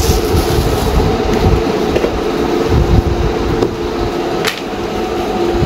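Rumbling knocks and handling noise from a phone being moved about by hand, over a steady hum, with one sharp click about four and a half seconds in.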